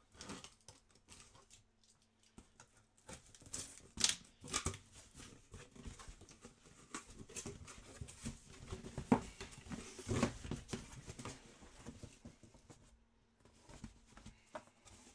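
A cardboard box being opened and handled by hand: irregular scraping, rustling and clicking of cardboard, with a few sharp knocks about 4 and 9 seconds in.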